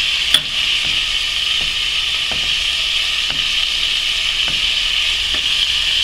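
Tomatoes, onion and garlic sizzling in oil in an aluminium pot, with soft strokes of a silicone spoon stirring in shredded boiled chicken as it is poured in. There is a steady hiss, and a sharp click about a third of a second in.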